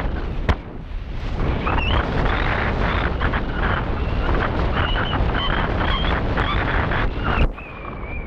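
Wind rushing over the microphone of a paraglider in flight, with a variometer's high beeping tone rising and falling in pitch underneath. The rush dips sharply near the end, then returns with a steadier tone that slowly falls in pitch.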